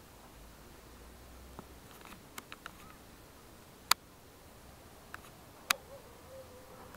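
Sharp clicks and taps from handling the phone while it zooms, a few small ones early and two loud ones about four and six seconds in, over faint outdoor hiss.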